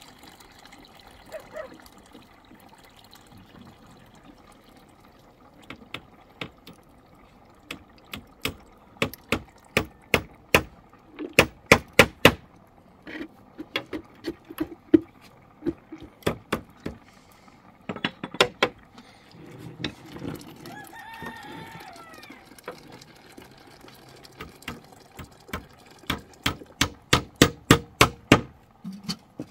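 Runs of sharp knocks, about two or three a second, with a rooster crowing once about two-thirds of the way through.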